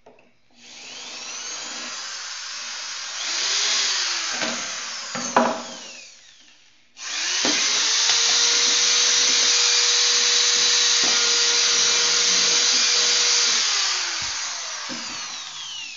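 Corded electric drill boring into white PVC pipe in two runs: the first about six seconds with a knock near its end, the second longer and louder with a steady whine, winding down near the end.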